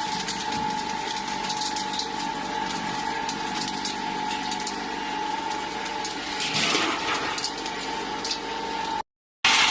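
A feed processing machine running: a steady motor whine with rattling clicks over it, briefly louder about seven seconds in, then cut off by a short dropout near the end.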